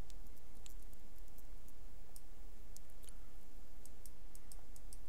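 Computer mouse clicking: a run of light, irregular clicks while stepping a video one frame at a time, over a steady low electrical hum and hiss.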